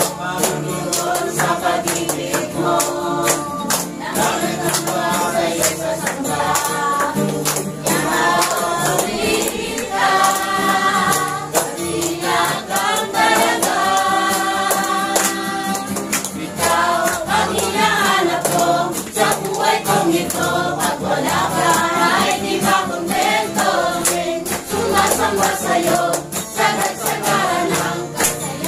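A small congregation singing a Tagalog praise song together, with a guitar strummed along and a tambourine jingling on the beat.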